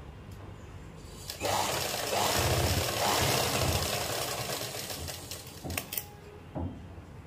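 Shanti sewing machine stitching a kurti's shoulder seam, starting about a second and a half in, running for about three seconds, then slowing to a stop. A few light clicks follow near the end.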